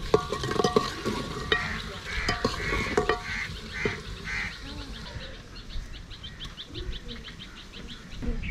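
A metal ladle clinks and scrapes against an aluminium cooking pot as frying food is stirred. In the background there is a run of short, honk-like bird calls, then a fast ticking chatter of birds.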